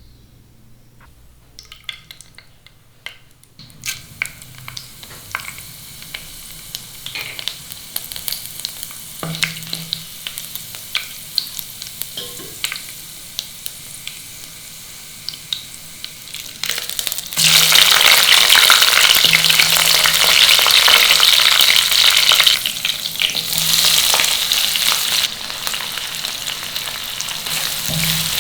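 Food frying in hot oil in a pan, a steady sizzle dotted with crackles and clicks from stirring. About seventeen seconds in, the sizzling suddenly gets much louder, then eases back a little.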